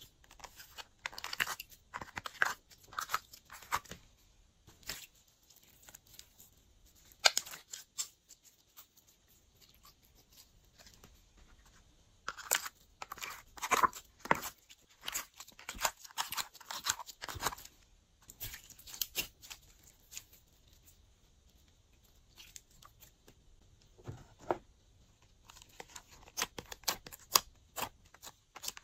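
Fingertips pressing, poking and pulling glossy slime in a plastic ice cube tray, giving irregular clusters of sharp crackling clicks and pops, with quieter stretches between.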